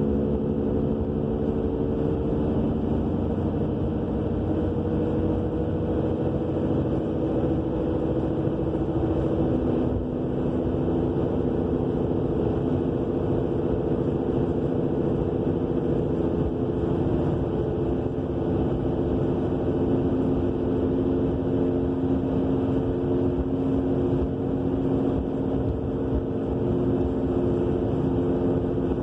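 2000 Subaru Legacy all-wheel-drive car on the move, with a steady roaring hum from the rear end made of several tones that drift slowly in pitch over a constant road rumble. It is a mystery rear-end roar whose cause the owner has not found; the rear brakes, calipers, rotors and wheel bearing are all new.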